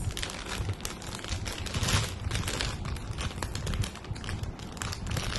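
Plastic LEGO parts bags crinkling as they are handled and opened, with many small irregular clicks.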